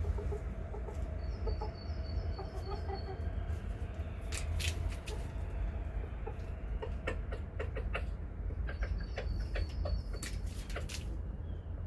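Domestic chickens clucking in short low notes, mixed with sharp clicks. Twice a short run of quick high chirps comes in, about a second in and again near the end. A steady low rumble runs underneath.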